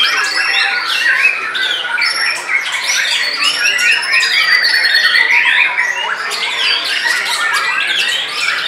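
Several white-rumped shamas singing at once, a dense, unbroken overlap of quick whistled phrases, sweeping notes and trills.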